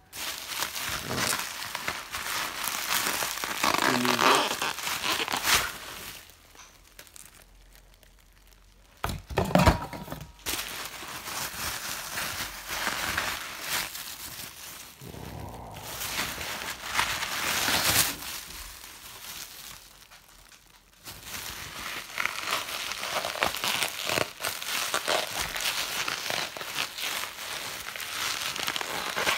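Plastic bubble wrap crinkling and rustling as it is handled close to the microphone, in stretches with short pauses. A couple of sharp knocks come about nine to ten seconds in.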